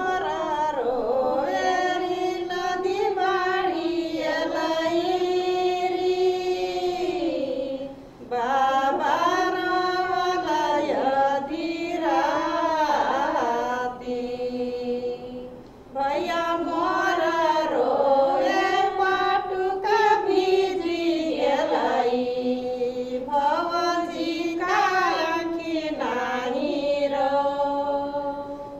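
Women singing a Tharu festival song unaccompanied, in long held phrases with two short breaks.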